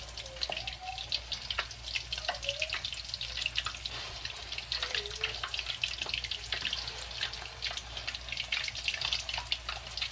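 Large beef meatballs frying in hot oil in a wok: a steady sizzle full of fast, dense crackles and pops as the outsides brown and set, with a faint low hum underneath.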